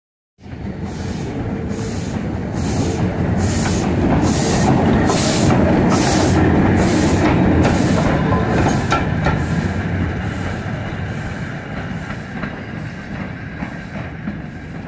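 BR Standard Class 4MT 2-6-0 steam locomotive 76079 running light engine, its exhaust chuffing steadily a little more often than once a second over a deep rumble. The beats are loudest midway and fade as it draws away.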